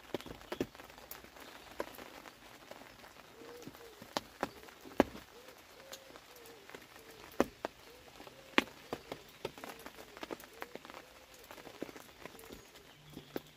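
Rain falling, with irregular drops ticking and tapping close by and a few louder taps among them.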